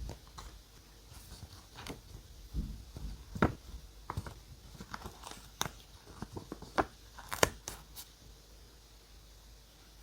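Paper being handled for scrapbook journaling: irregular crinkling and tearing with sharp clicks. The crackles are loudest about three and a half and seven and a half seconds in, then die away near the end.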